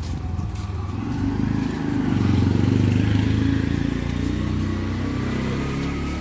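A small vehicle's engine running close by, growing louder to a peak about three seconds in and then easing off as it passes.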